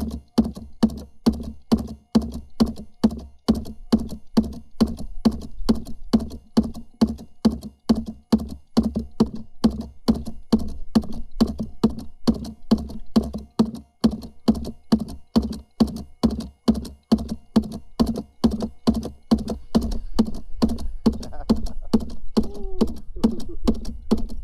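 Homemade scrap-aluminum fish thumper knocking against the kayak's hull in a steady, even rhythm, about two knocks a second, over a low motor hum. The thumping is sent into the water to draw a school of white bass under the boat.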